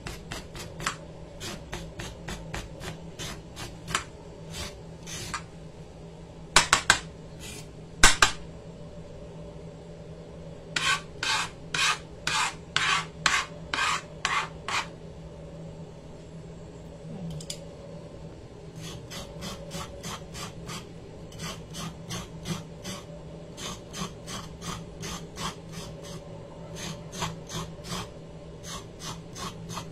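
Kitchen knife blade scraping the skin off a raw carrot in short repeated strokes, about three a second, with a louder run of strokes around the middle.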